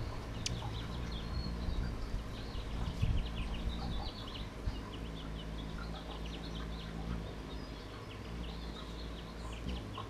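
Allen's hummingbird's wings humming steadily as it hovers at a feeder, with many quick, high chirps scattered throughout.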